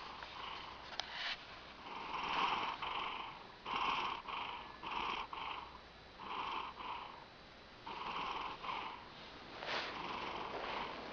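A cat snoring: short snores in little runs of two to four, with brief pauses between the runs.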